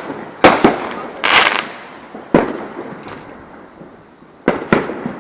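Neighbourhood fireworks going off: a quick pair of sharp bangs about half a second in, a longer noisy burst just after a second, then further single bangs spaced a second or two apart. Each bang trails off in an echo.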